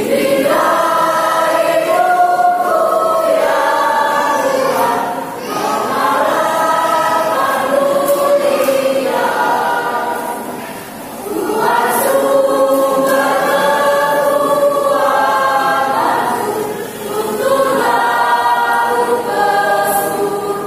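Mixed choir of men's and women's voices singing a hymn in parts, in phrases of a few seconds with brief dips for breath between them.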